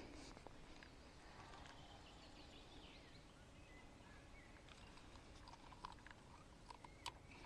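Near silence: faint outdoor ambience with a few faint bird chirps, and several small sharp clicks in the second half, the sharpest near the end.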